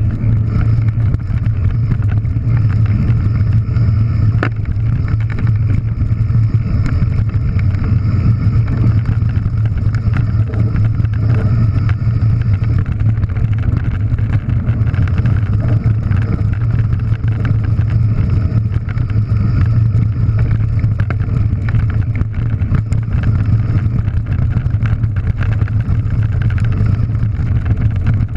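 Rushing wind on the microphone and the steady rolling rumble and rattle of an enduro mountain bike's knobby tyres on loose gravel, heard from a camera mounted on the bike as it descends at speed.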